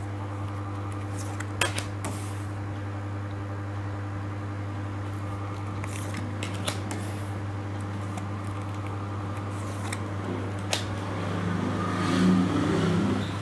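Tarot cards being dealt one at a time onto a tabletop: a few short card snaps and slides, over a steady low electrical hum. A brief low murmur rises near the end.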